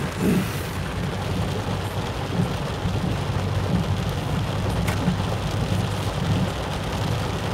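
Rain falling on a moving car, heard from inside the cabin, over the low steady hum of the car's engine.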